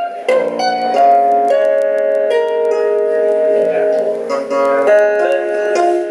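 Chapman Stick played solo: amplified tapped notes ringing on, several sounding together as a melody moves over held lower notes.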